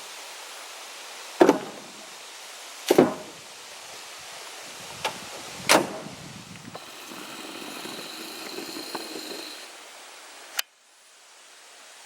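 Three heavy thuds spaced about a second and a half apart over a steady hiss, followed by a softer rustling stretch and a sharp click after which the background drops suddenly.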